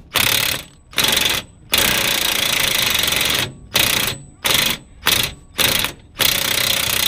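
A 20V Ingersoll Rand cordless impact wrench hammers on a nut through a deep socket in repeated trigger bursts: two short bursts, a long one of nearly two seconds, four short ones, then another long burst near the end.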